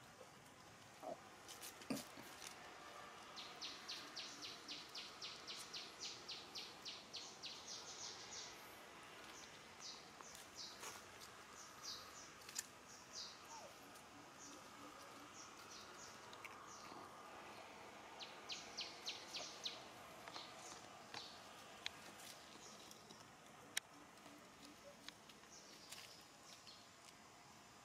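Faint outdoor ambience with a bird chirping in quick runs of short high notes, about three or four a second, plus a few scattered clicks.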